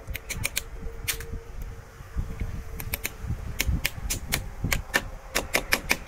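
Hammer tapping a pipe clamp's fastening into a concrete wall to fix PVC electrical conduit: sharp taps in clusters, coming quicker near the end.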